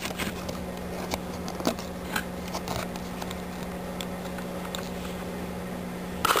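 Light clicks, taps and small rustles of hands working a cut plastic insert, over a steady low hum.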